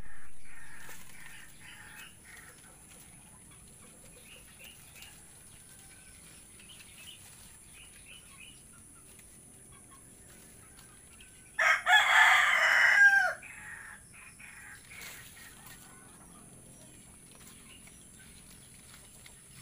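A rooster crows once about twelve seconds in, a single cock-a-doodle-doo lasting about a second and a half and falling in pitch at the end. Faint short calls are scattered through the rest.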